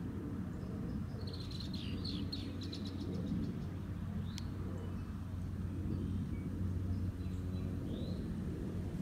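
A small bird calling in a rapid chattering run of high notes about a second in, lasting about a second and a half, with a short chirp near the end. A steady low rumble lies underneath.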